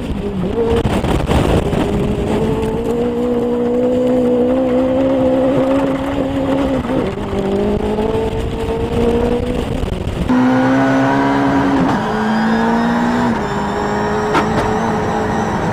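Turbocharged engine of a Ford Fiesta hill-climb car, heard onboard under hard acceleration. Its pitch climbs and drops back with gear changes, about seven seconds in and again several times near the end. Wind and road noise run under it until about ten seconds in.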